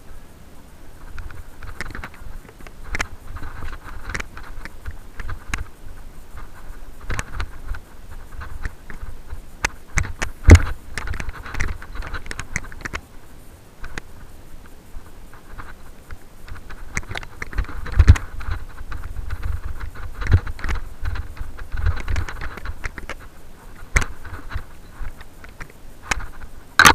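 Mountain bike rolling over a bumpy dirt singletrack: continual rattling and clicking from the bike, tyre noise and a low rumble, with two hard knocks from bumps, about ten and about eighteen seconds in.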